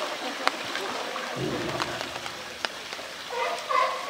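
Pool water splashing and sloshing around a floating plastic barrel that a polar bear is playing with, under steady rain, with a few sharp knocks and a dull thump about a second and a half in. Near the end a repeated pitched calling sound starts.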